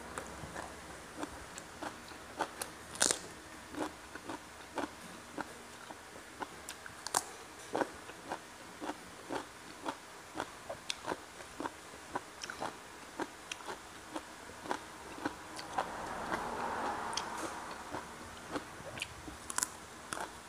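Close-miked chewing and biting of crunchy food, fried catfish and raw vegetables: a steady run of short, sharp crunches, about one or two a second.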